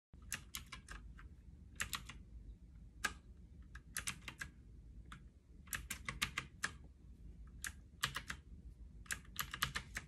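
Camiysn typewriter-style mechanical keyboard with clicky blue switches being typed on: short bursts of a few key clicks with pauses of about a second between them.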